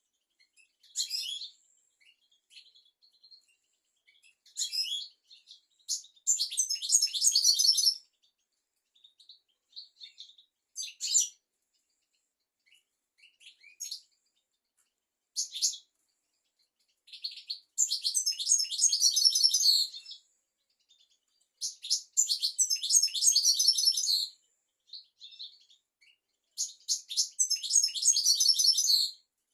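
European goldfinch singing: high, rapid twittering phrases of one to three seconds, broken by short calls and pauses, with the fullest phrases in the second half.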